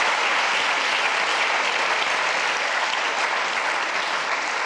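A large audience applauding steadily, many hands clapping at once in a dense, even clatter.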